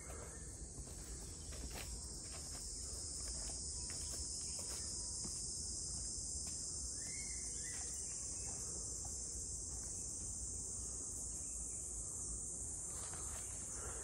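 Steady high-pitched drone of forest insects, with a brief call near the middle and faint scattered ticks.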